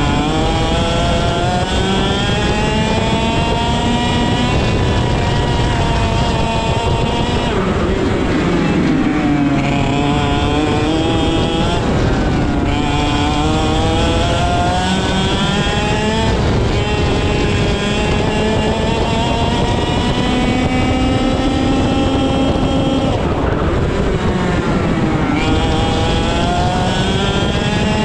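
IAME X30 125cc two-stroke kart engine at full racing pace, heard onboard. The revs climb along the straights and fall away into the corners, dropping sharply three times and winding back up after each.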